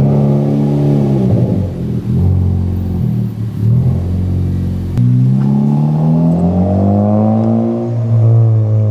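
Honda Civic Type R (FK8) 2.0-litre turbocharged four-cylinder revving through a freshly fitted Greddy DDR resonated exhaust. The pitch drops back from a rev, then a few small blips follow. About halfway in, a slow rev climbs and falls back near the end.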